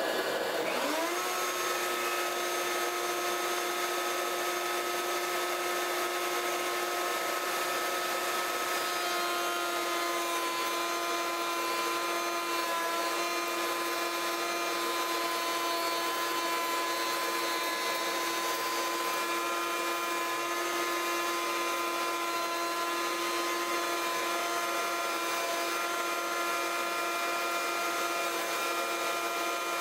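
A table-mounted wood router is switched on and spins up within about a second to a steady high whine. It then runs as a board is fed past a windowsill-profile bit. A shop vacuum pulling dust from the fence runs under it throughout.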